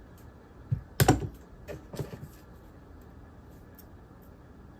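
A few sharp light clicks of small metal parts being handled, the loudest about a second in, then quiet handling.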